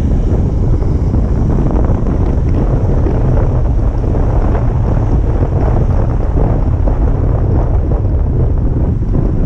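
Wind buffeting the microphone: a loud, steady, rumbling rush with no pauses.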